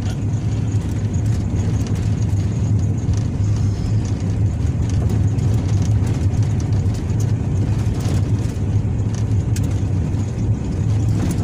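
A vehicle driving slowly on a dirt road, heard from inside the cabin: a steady low engine and road rumble.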